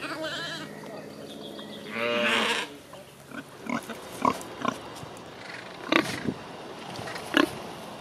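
A Pomeranian sheep bleats, once briefly at the start and once at length about two seconds in. After that, Danish Landrace pigs grunt in short, separate grunts spaced a second or so apart.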